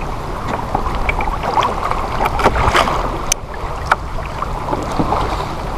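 Wind buffeting the microphone and choppy water slapping against a kayak hull, with scattered sharp clicks and knocks.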